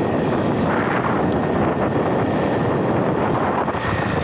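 HBX Destroyer RC car driving fast over a dirt track, heard from a camera mounted on its body: a steady rush of tyre-on-dirt noise and wind on the microphone.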